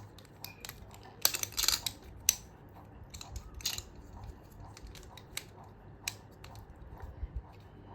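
Plastic Rubik's cube pieces clicking and snapping as they are pressed into the cube by hand, with a quick cluster of clicks and rattles a little over a second in and single clicks after it.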